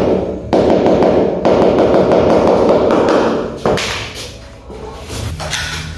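A ceramic floor tile being tapped rapidly with a hammer to seat it level and firmly in its mortar bed. The run of taps goes on for about three and a half seconds, then stops, leaving a few quieter knocks and shuffles.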